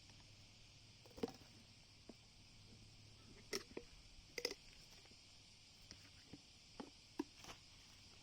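Half a dozen short, light clicks and knocks, spaced irregularly, over a faint steady hiss.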